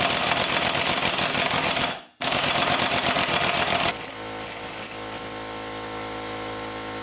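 Impact wrench hammering on the flywheel nut of an old Evinrude 3 hp outboard, in two bursts with a brief pause about two seconds in. The hammering stops about four seconds in, leaving a steady low hum.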